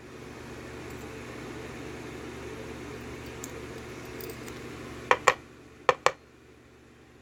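Small metal lock parts (pins and springs) being handled and set down: two pairs of sharp clicks about five and six seconds in, over a steady low hum that cuts out just after the second pair.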